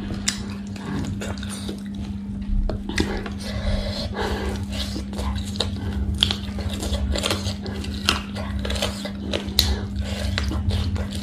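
Close-miked eating: crunchy bites into a crispy fried chicken drumstick and wet chewing, with many short crisp clicks, over a steady low hum.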